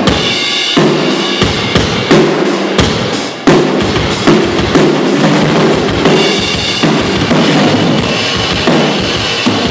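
Live drum kit played in a steady beat, with kick drum, snare and evenly spaced cymbal strokes, and other instruments underneath, during a band's sound check. A hard accented hit comes about three and a half seconds in.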